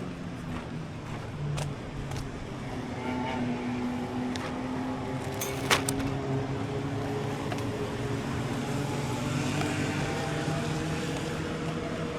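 A motor vehicle's engine running with a steady hum, with a few light clicks and one sharp click about halfway through.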